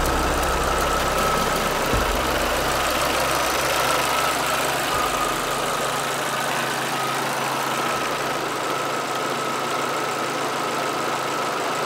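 A 2011 Chevrolet Tornado's four-cylinder engine idling steadily, heard from the open engine bay, with a thin, steady high whine running along with it. A light knock comes about two seconds in.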